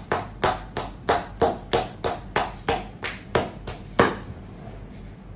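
Rhythmic fleshy slaps of buttocks clapping together, about three a second, stopping about four seconds in.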